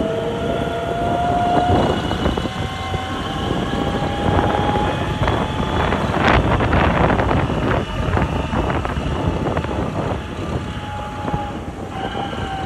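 Running noise of a moving road vehicle heard from on board: low rumble with a faint whine that slowly rises in pitch, and wind on the microphone. A stretch of rattling comes about six seconds in.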